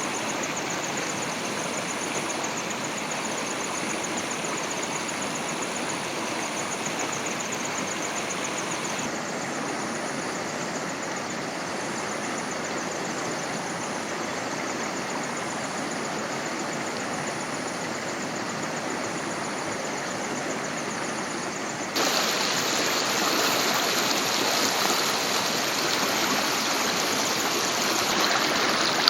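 Running water of a stream, a steady rushing with a fast, high pulsing rhythm over it for the first several seconds. The sound shifts abruptly twice, getting louder about three-quarters of the way through.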